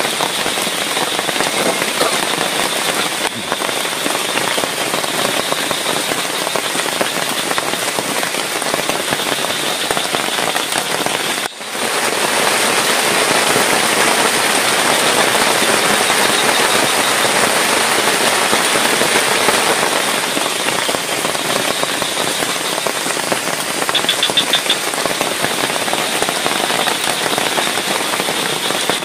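Heavy rain falling steadily, a dense even hiss with a brief dip a little before the middle.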